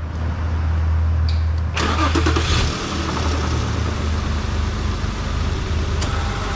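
The Infiniti M35's 3.5-litre V6 is cranked and started, freshly filled with oil. About two seconds in it catches with a brief rev-up, then settles into a steady idle.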